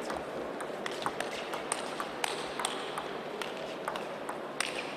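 Table tennis rally: the ball clicks sharply off the players' bats and the table, two or three taps a second, over the steady noise of the hall.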